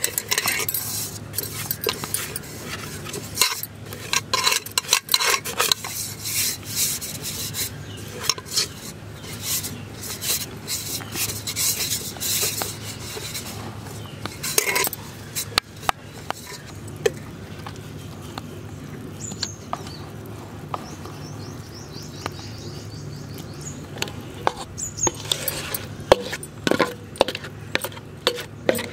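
Fingers rubbing ghee around the inside of a metal pot to grease it, with irregular scraping and clinking of the metal vessel over a steady low hum.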